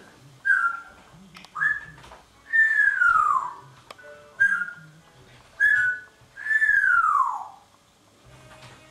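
Parrot whistling a phrase of two short notes followed by a long whistle sliding down in pitch, repeated twice.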